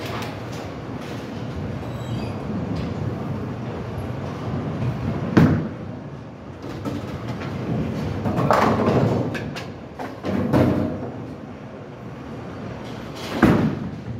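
Bowling balls rolling down the lanes with a steady rumble, broken by the loud crash of balls hitting pins about five seconds in and again near the end, with more pin clatter in between.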